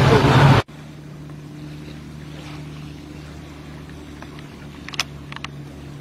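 Motorboat engine running under way, with the rush of wind and water over it; the sound cuts off abruptly less than a second in. A much quieter steady low hum follows, with a few short sharp clicks near the end.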